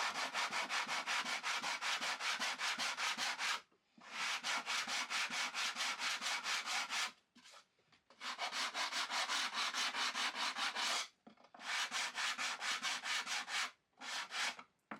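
Sandpaper rubbed by hand on a plywood drawer in quick back-and-forth strokes, about five a second, in bouts of a few seconds with short pauses between them. It is taking down the high top edge that made the drawer rub in its opening.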